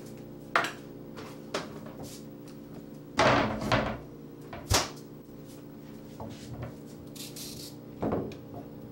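Scattered knocks and clatters as carrots and a peeler are picked up and set down on a countertop and wooden cutting board, with a busier cluster about three seconds in. A steady low hum runs underneath.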